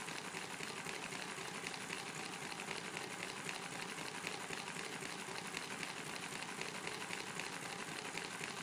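Miniature multi-cylinder model engine running steadily, with a fast, even mechanical clatter that stays the same throughout.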